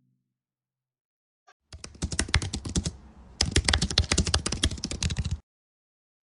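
Rapid typing on a computer keyboard: two quick runs of keystrokes separated by a short pause.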